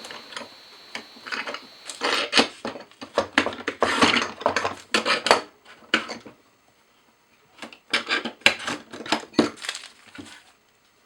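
Clamps being handled and set during a glue-up: a quick, irregular series of clicks and clattering knocks in two spells, with a short quiet gap between.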